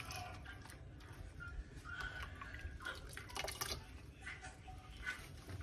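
Soup being ladled from a pot into a bowl: faint splashing and dripping of broth, with a few light knocks of the ladle, the clearest about three and a half seconds in.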